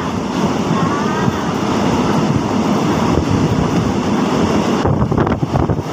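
Passenger train running along the track, heard from inside the carriage: a loud, steady rumble and rattle of wheels on rail.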